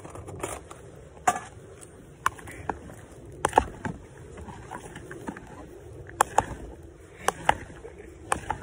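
A metal spoon clinking and knocking against a salad bowl as salad is stirred: a dozen or so irregular light knocks, several in quick pairs.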